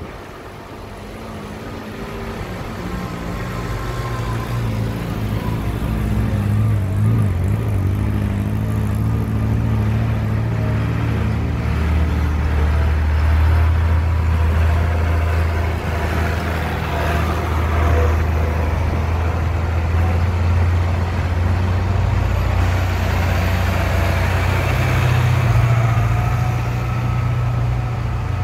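Tractors' diesel engines running as the tractors drive slowly past one after another. The engine note builds over the first few seconds, then stays loud and steady, with a second swell near the end as the next tractor comes up.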